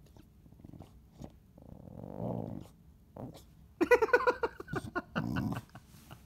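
Chow Chow growling over a raw beef bone as a hand reaches in: a low rumbling growl about two seconds in, then louder, higher snarling growls around four seconds and again near five and a half seconds. Faint clicks of chewing on the bone come between them.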